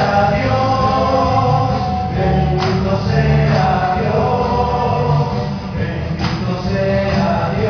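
Catholic charismatic worship song in Spanish: voices singing over a band with bass and percussion, with two sharp percussion hits about two and a half and six seconds in.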